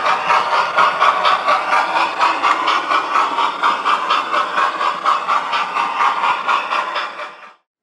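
Model locomotive's sound decoder playing a rhythmic engine sound through its small onboard speaker, thin with almost no bass, pulsing about five times a second and fading out near the end.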